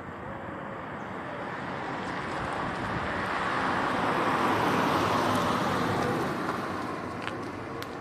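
A car passing by, its tyre and engine noise swelling to a peak about halfway through and fading away near the end.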